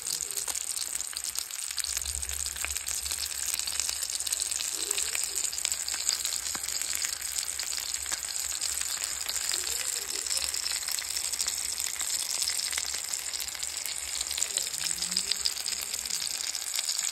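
Whole pompano fish frying in hot oil in a pan, with a steady sizzle and fine crackling throughout.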